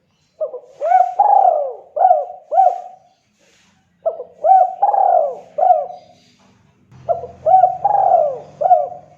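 Spotted dove (tekukur) cooing: three phrases of several rising-and-falling coos each, with a short pause between phrases.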